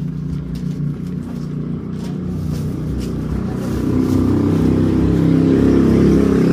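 A motor vehicle's engine running steadily with a low hum, growing louder about four seconds in.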